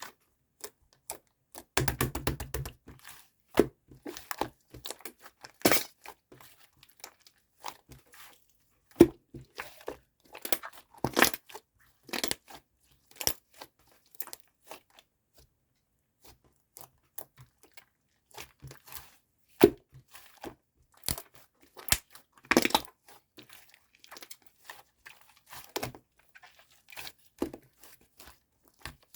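Irregular close handling noises: scattered taps and short scratchy rustles, with a denser run of rapid scratching strokes about two seconds in.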